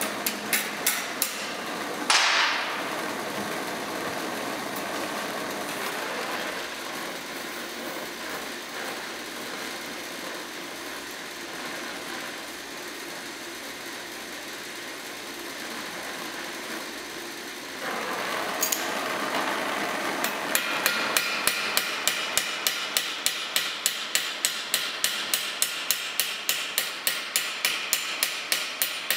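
A few light ball-peen hammer taps on steel and a sudden loud burst about two seconds in. Then a gas torch hisses steadily while it heats a steel rivet joining a spatula's handle. In the last nine seconds or so the hammer strikes the hot rivet fast, about three ringing blows a second, setting the rivet.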